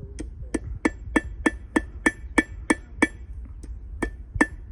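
Blacksmith's hammer striking iron on an anvil in a steady rhythm, about three blows a second, each with a bright metallic ring, with a brief pause a little after three seconds. The smith is forging the nail end of an iron hook.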